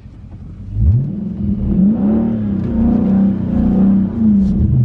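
A Dodge Charger Scat Pack's 6.4-litre HEMI V8 revs up sharply about a second in and is held at high revs, its pitch rising and falling a little, as the driver tries to power the car out of snow it is stuck in.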